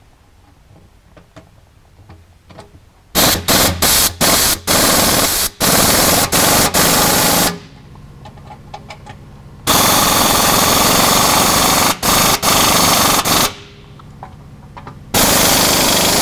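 Impact wrench hammering as it runs skid-plate bolts down tight. First comes a string of short trigger bursts about three seconds in, then a steady burst of about four seconds in the middle, and a short one near the end.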